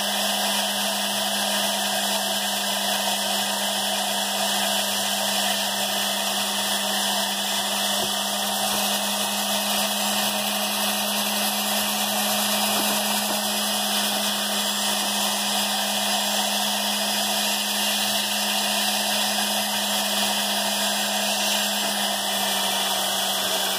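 Rotary carving tool with a coarse bit running steadily, a constant hum over a hiss, as it grinds the chalcedony cap off a fire agate.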